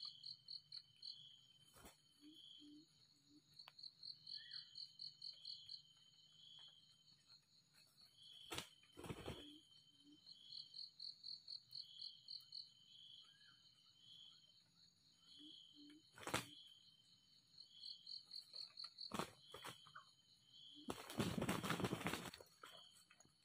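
Insects calling in repeated trains of fast high trills, with a few sharp clicks. Near the end comes a loud burst of about a second and a half of wing-flapping from red junglefowl roosters fighting.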